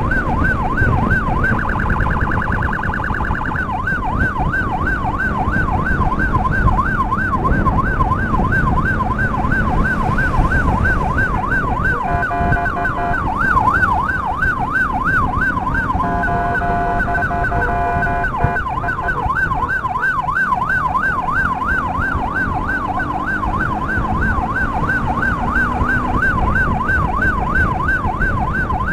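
Electronic emergency siren yelping, sweeping quickly up and down about three times a second, with a brief faster warble near the start. Twice around the middle, a steady horn-like blast of about two seconds sounds over it. A low rumble runs underneath.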